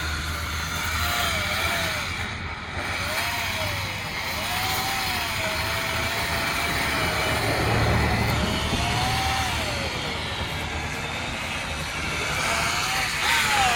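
Steady road-traffic noise with a low rumble. A thin tone rises and falls over it every second or two.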